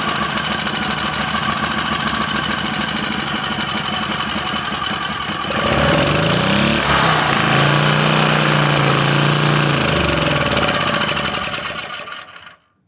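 Champion 1800/1400-watt generator's small four-stroke engine running on full choke at its first start after months of sitting, freshly treated with carburetor spray. About halfway through it gets louder and its speed swings up and down, then it winds down and stops near the end.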